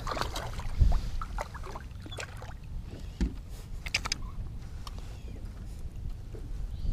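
Water lapping against a small fishing boat with a low wind rumble on the microphone. Scattered small splashes and clicks come through as a hooked largemouth bass is worked to the side of the boat and lifted out.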